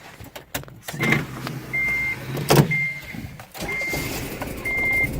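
Car engine starting and settling into a rough idle, with a dashboard warning chime beeping about once a second and a sharp knock partway through. The rough idle comes just after a spark-plug problem that kept it from running; the owner says it sounds cammed.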